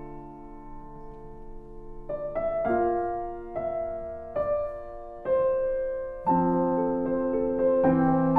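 Background music: slow piano chords that ring and fade, with one chord held for the first two seconds and a new one about every second after that.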